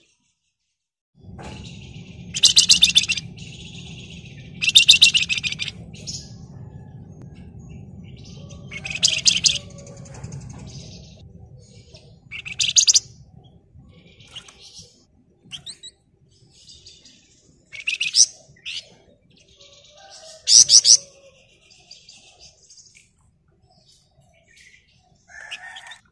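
Flamboyan songbird singing in loud, rapid, drill-like rattling trills ("ngebren"), each under a second, about six main bursts a few seconds apart with short chirps between. A steady low hum runs underneath through the first half.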